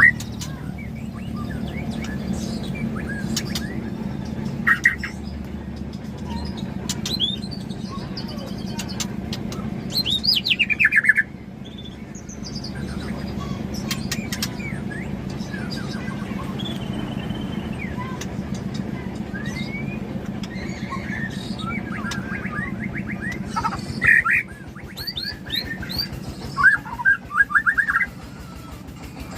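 White-rumped shama (murai batu of the Aceh type) singing in short, varied phrases of clear whistles and rapid sweeping trills, louder about ten seconds in and again near the end. A steady low hum runs underneath.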